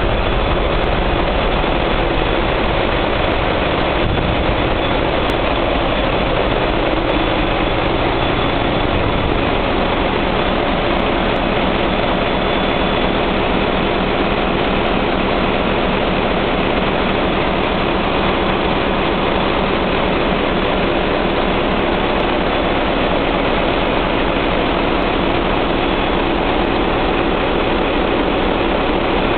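Loud, steady machinery din of a cruise ship's diesel-electric engine room: large marine diesel generator engines running. A deep rumble sits under a thin, constant high whine.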